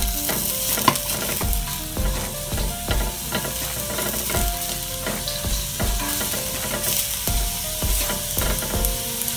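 Garlic, red onion and spices sizzling in a little oil in a stainless steel wok, stirred with a silicone spatula that scrapes and knocks against the pan about twice a second. The metal pan rings briefly after each stroke.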